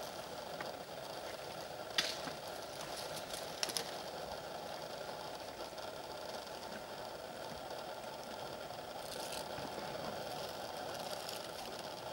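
Steady hum of an idling vehicle engine, with a few sharp crackles about two and three and a half seconds in, as the elephant breaks and chews acacia branches.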